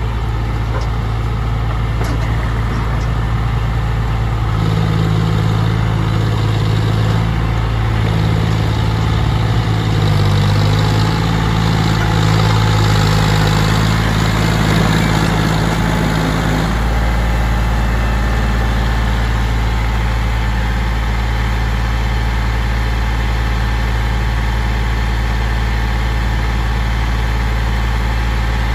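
Diesel tractor engines running under load as they pull trolleys through a muddy field. The engine note wavers and shifts for the first part, then settles into a steadier, deeper hum about two-thirds of the way through.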